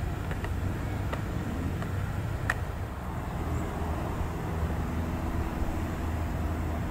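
Steady low rumble of car and truck traffic, with a few faint clicks in the first half, the sharpest about two and a half seconds in.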